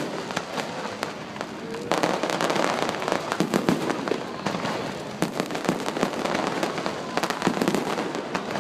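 Fireworks display going off without pause: many overlapping bangs and crackles in quick, irregular succession.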